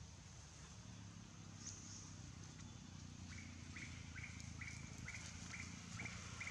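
Quiet outdoor ambience; about three seconds in, a bird starts calling a steady series of short chirps, about two a second.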